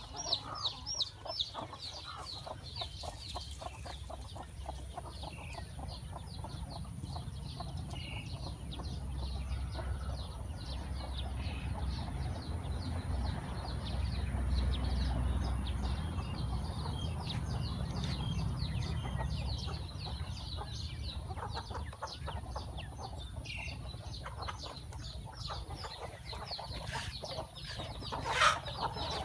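Chickens clucking, with many short high-pitched calls throughout. A low rumble swells in the middle, and a brief louder sound comes near the end.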